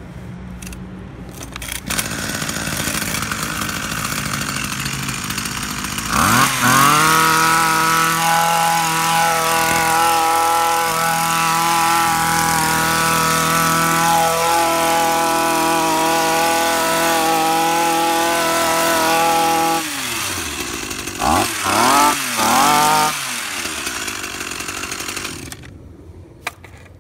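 Tanaka THT-2000SA hedge trimmer's small two-stroke engine, pull-started with its S-start recoil, catches about two seconds in and idles. About six seconds in it is revved to full throttle and held there, with a few dips, for about fourteen seconds. It then drops back to idle, is blipped three times in quick succession, and shuts off near the end.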